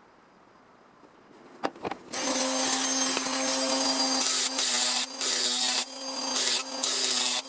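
A power tool starts up about two seconds in and works sheet steel with a steady hum under a loud hiss of cutting or grinding, with several brief dips as it eases off the metal. Two light clicks come just before it starts.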